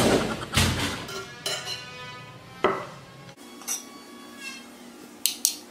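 Metal spoon clinking and scraping on ceramic plates as food is served, with a few sharp clinks near the end.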